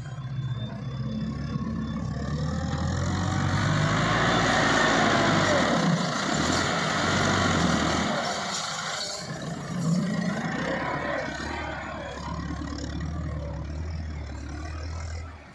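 Massey Ferguson tractor's diesel engine working hard under load as a front-end loader digs into and lifts soil, the revs rising and falling. It is loudest over the first half, eases about nine seconds in, then runs on steadily.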